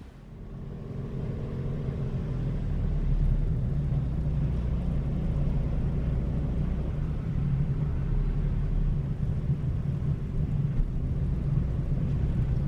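Car driving along a road, a low steady rumble of engine and tyres that builds over the first few seconds as it picks up speed, then holds.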